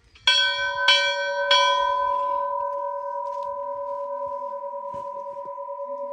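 Hindu temple bell struck three times about half a second apart, then ringing on with a long, slowly pulsing hum that fades gradually.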